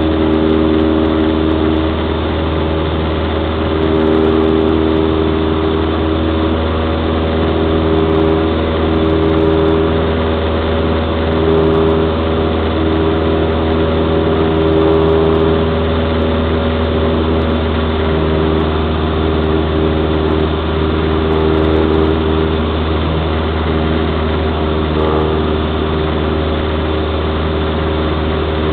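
Cessna 172's piston engine and propeller droning steadily in flight, heard from inside the cockpit, a low hum with several steady tones that swell and ease slightly.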